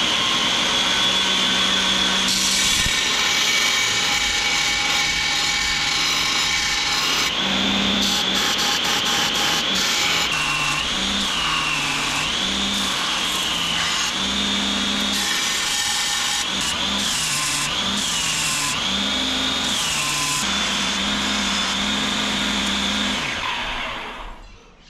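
Belt grinder running with a blue abrasive belt, grinding the profile of a knife blank cut from car leaf-spring steel. Its high motor whine drops in pitch again and again as the steel is pressed into the belt, and recovers between passes. It stops near the end.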